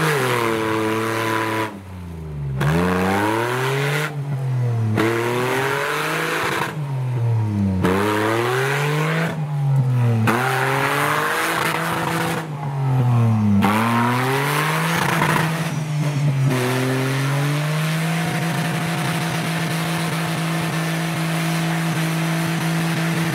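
Off-road 4x4's V6 petrol engine revved hard and let fall back over and over, roughly every two seconds. About three-quarters of the way through it settles and is held at a steady, raised engine speed.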